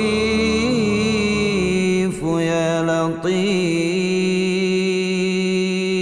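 A group of voices chanting an Islamic dhikr in unison, long drawn-out held notes with short breaks about two and three seconds in.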